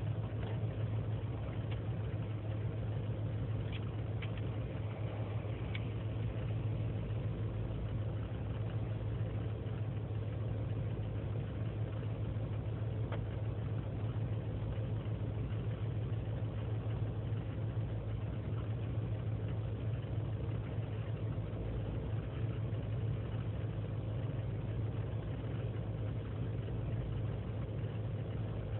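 2003 GMC Sierra's 5.3-litre V8 idling steadily on its own during warm-up after a cold start, a constant low hum. The owner puts its cold rough idle and misfires down to a failing intake gasket.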